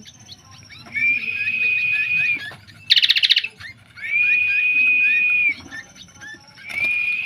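Bird calls: a long, flat, high whistle held for about a second and a half, repeated every three seconds or so, over scattered small chirps. About three seconds in comes a short, rapid rattle. This is the kind of recorded bird-sound mix played to train a caged songbird's nerve.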